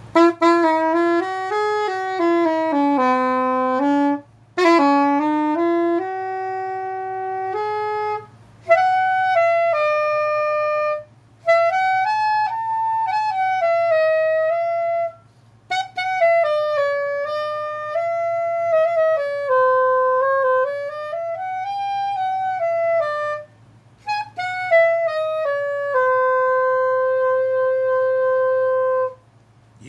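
Jean Paul SS400GP curved soprano saxophone with a 5C mouthpiece playing a slow solo melody in several phrases with short breaths between, ending on a long held note. The player says its intonation is a little off, the horn being new and not yet warmed up or tuned.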